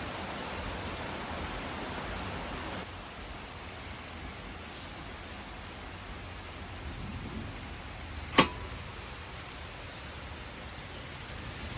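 Steady rain falling, an even hiss that eases slightly about three seconds in, with one sharp click about eight seconds in.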